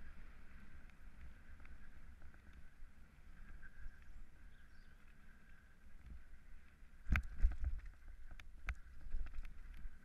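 Mountain bike rolling downhill on a trail: steady low rumble of tyres and wind on the camera, with a cluster of sharp knocks and rattles from the bike about seven to nine seconds in as it runs over rougher, stony ground.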